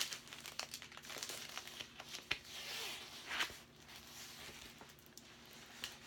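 Crinkling and rustling of packaging as a diamond painting canvas is unwrapped, with a few sharper crackles about two and three and a half seconds in.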